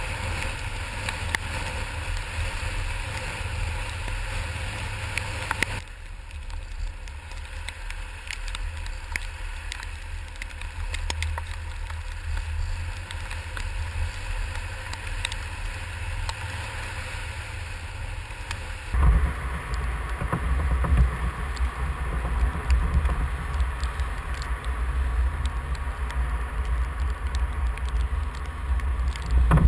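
Road vehicle noise and outdoor wind rumble on the microphone, a steady noisy drone that changes abruptly about six seconds in and again about nineteen seconds in, the last stretch louder and deeper.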